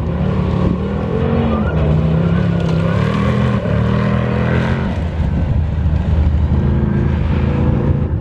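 Off-road competition car's engine running hard, its revs rising and dropping several times.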